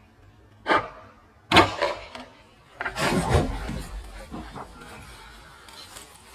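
Two hammer blows driving a wedge into a large seasoned sycamore stem, about a second apart. About three seconds in, the wood gives way with a loud cracking and rumbling that fades over a couple of seconds as the split section shifts.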